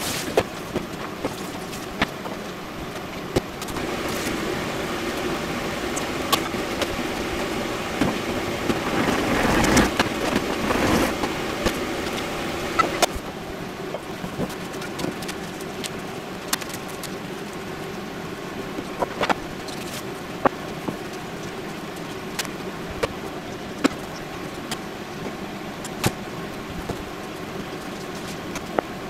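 A steady low hum in a kitchen, with scattered sharp clicks and knocks of dishes being handled and set down on a wooden counter. There is a louder stretch of rustling noise about eight to twelve seconds in.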